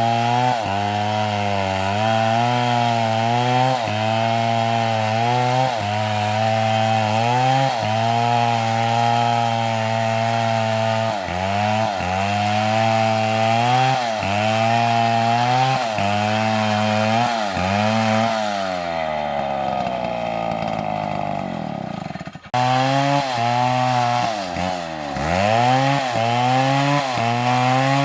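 Two-stroke chainsaw cutting into a tree, its engine note dipping again and again as the chain bites into the wood. About two-thirds through, the revs sink slowly, then there is a sudden break and the saw is back at high revs, cutting again.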